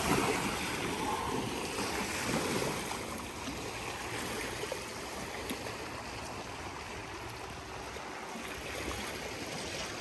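Steady rushing of flowing water from a stream or waterfall.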